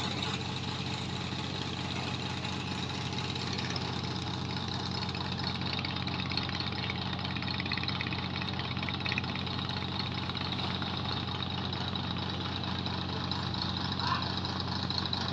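Diesel engine aboard a moored cargo ship idling, a steady low hum that does not change.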